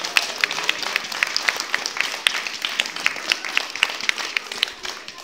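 A small group applauding, with sharp claps close by, dying away near the end.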